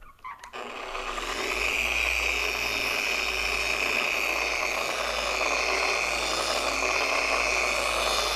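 Random orbital polisher running on the fender's paint for a final polishing pass. It starts about half a second in, comes up to speed over about a second, and then runs steadily with a high whir.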